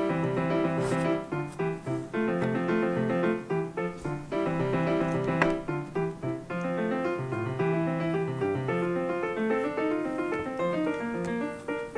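Background piano music: a steady run of notes over a moving bass line.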